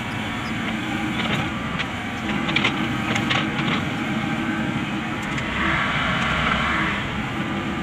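Komatsu PC78US excavator's diesel engine running under load with its hydraulics working as it digs soil and swings the bucket to the dump truck. A few sharp knocks from the bucket and soil come in the first half, and a higher hydraulic whine swells for a second or so in the second half.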